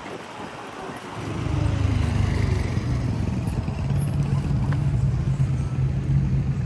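Road traffic heard from a moving electric motorcycle. A low rumble swells about a second in and settles into a steady low hum.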